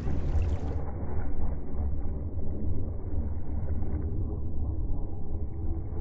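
Low, uneven rumble of wind buffeting the microphone, with no clear pitch or distinct events. After about a second the sound turns duller, as the high end drops away.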